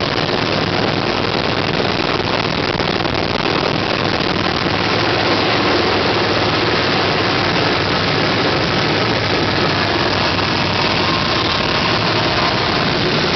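A vehicle engine running steadily at idle: a loud, even noise with a faint steady hum, unchanging throughout.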